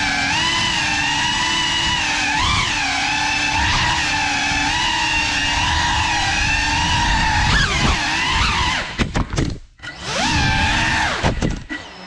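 FPV quadcopter's brushless motors whining, the pitch rising and dipping with the throttle. About ten seconds in the sound cuts out almost completely, comes back briefly, then falls away again near the end.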